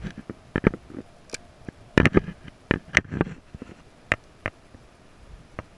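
Irregular clicks and light knocks from handling a spinning rod and reel during a retrieve, the loudest cluster about two seconds in.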